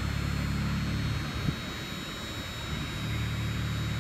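Steady low mechanical hum that weakens for a couple of seconds mid-way, with a single sharp click about a second and a half in.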